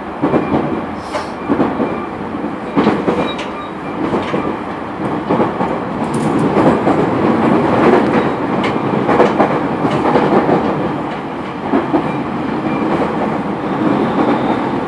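JR East E231-900 series train running at speed, heard inside motor car MoHa E230-901: a steady rumble of wheels on rail with repeated clicks as the wheels pass over rail joints.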